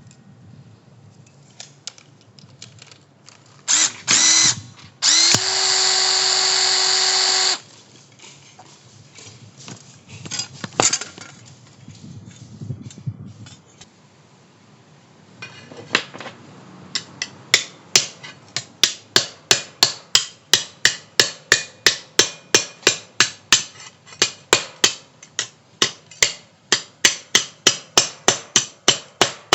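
An electric drill spins up briefly, then runs steadily for a couple of seconds and stops. Later, sharp metallic strikes begin and keep up an even rhythm of about two a second.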